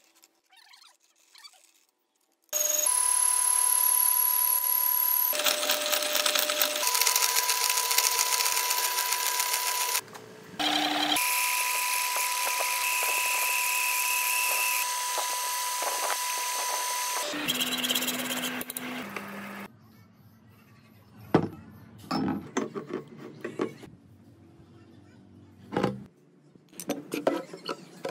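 Electric power tool running in two long spells of about seven seconds each, with a steady whine over a harsh noise, then scattered lighter clicks and knocks.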